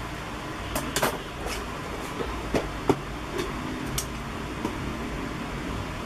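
A cardboard toy box being handled for opening: a few light taps and clicks scattered over several seconds, over a steady low hum.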